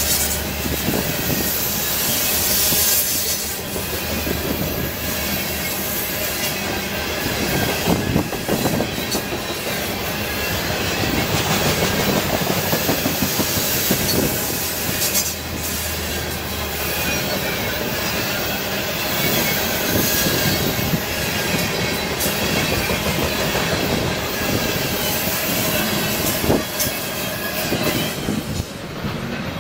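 Norfolk Southern freight train of loaded covered hopper cars rolling past close by: a steady rumble of steel wheels on rail, with sharp clacks as the wheelsets cross rail joints.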